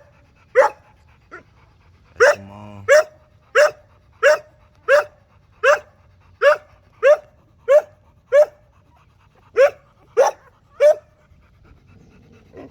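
XL American Bully dog barking over and over, one short sharp bark about every two-thirds of a second, with a couple of brief pauses.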